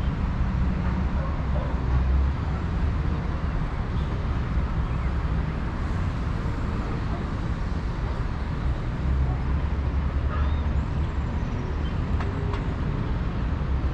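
Steady city traffic noise with an uneven low rumble.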